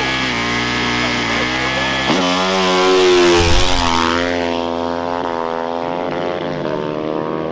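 Dirt bike engine held at revs on the start line, then launching hard about two seconds in. The pitch climbs to its loudest, dips at a gear change, climbs again, and fades as the bike pulls away.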